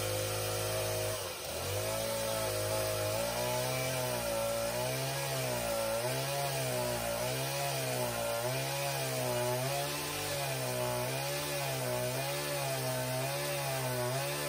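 Stihl chainsaw at full throttle ripping a log lengthwise into a floor plank, free-hand. The engine dips briefly about a second in, then holds high with its pitch rising and falling about once a second as the load in the cut changes.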